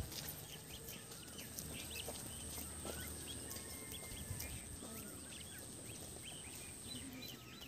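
Goslings peeping: many short, high calls in quick succession, with a few softer, lower calls among them.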